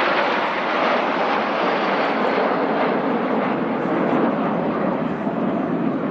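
A formation of BAE Hawk jets passing, with a loud jet rush whose pitch falls steadily as they go by.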